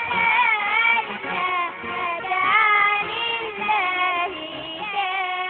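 Children singing a melody that rises and falls, settling into a long held note near the end.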